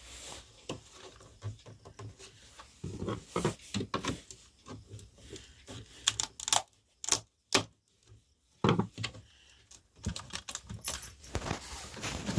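Irregular clicks, taps and scrapes of a hard plastic home theatre cabinet being handled and pried at, its front panel held fast by glue, with a few louder clacks about six to seven and a half seconds in.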